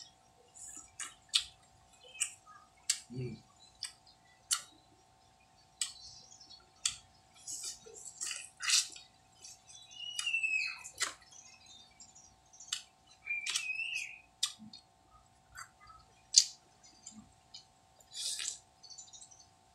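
Green mango being eaten close to the microphone: sharp crunching bites into the firm fruit and wet smacking chews, in irregular bursts.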